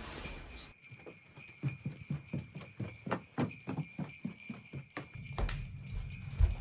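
Jingle bells ringing steadily. Through the middle there is a quick run of light taps, about four a second.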